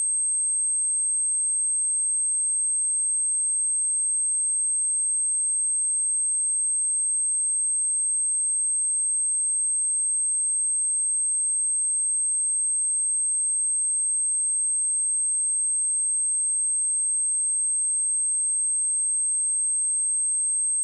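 A single pure sine-wave test tone at 8366 Hz, high-pitched and unchanging in pitch and level. It is a speaker-test tone, also played to clear water and dust from speakers.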